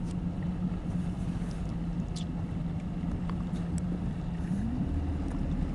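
Motorboat engine running steadily under way while towing a tube, over a low rumble of wind and water; the engine's pitch rises about four and a half seconds in.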